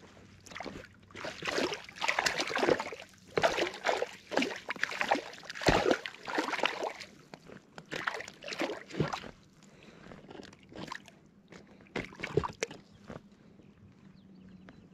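Rainbow trout splashing in a landing net held at the water's surface, in irregular bursts of sloshing water that thin out and die down over the last few seconds.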